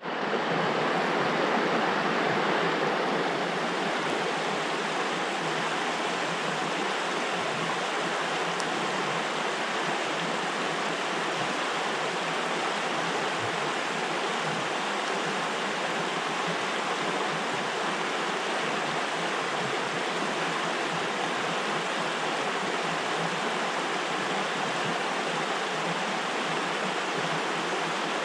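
Steady rushing of a flowing trout stream.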